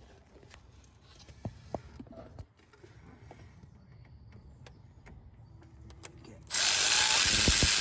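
Faint scattered clicks of a socket ratchet tightening diesel glow plugs into the cylinder head, then a loud rushing noise for just over a second near the end.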